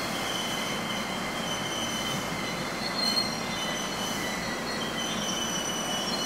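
Wheels of slowly rolling passenger train coaches squealing on the rails: several thin, high-pitched tones held over a steady rumble.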